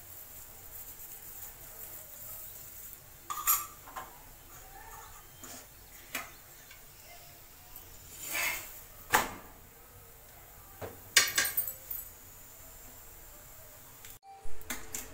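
Steel spatula scraping and knocking against an iron tawa while a paratha is pressed and turned: a handful of short, irregular clanks and scrapes over a faint steady hiss.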